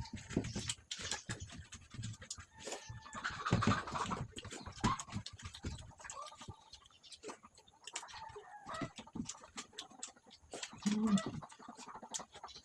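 Close eating sounds: chewing and many quick clicks and scrapes of hands and food on plates during a fast rice-and-fish-fry eating race.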